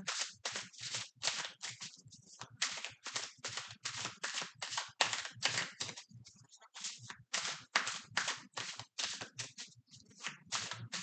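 Tarot cards being shuffled by hand: a quick run of sharp card slaps, about four or five a second, with a brief pause about six seconds in.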